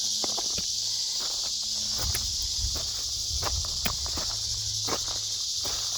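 Footsteps on a hiking trail, a series of short irregular crunches, over a steady high-pitched insect chorus.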